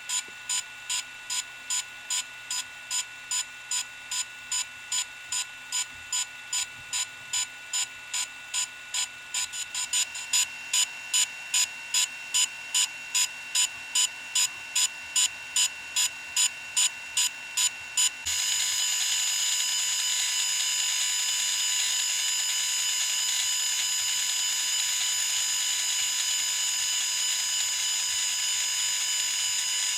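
DJI Phantom 3 Pro quadcopter beeping while its firmware updates: short high beeps about two a second, louder from about ten seconds in, then a continuous steady high tone from about eighteen seconds in.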